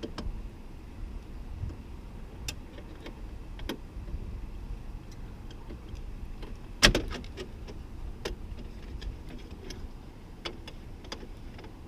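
Scattered light clicks and taps of plastic and metal parts being handled while the Chevy S10's third door handle and its retaining clips are worked loose. One sharper knock comes about seven seconds in, over a low steady rumble.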